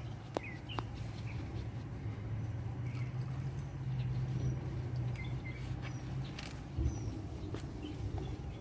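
Gel coat being stirred in a container: scattered light clicks and taps over a steady low hum, with a few short bird chirps now and then.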